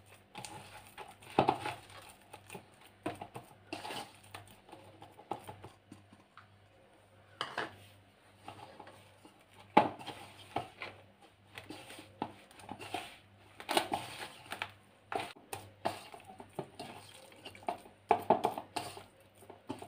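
Hand mixing and kneading a dough of maida flour and ground spice paste in a stainless steel plate: irregular knocks and scrapes of the fingers against the steel.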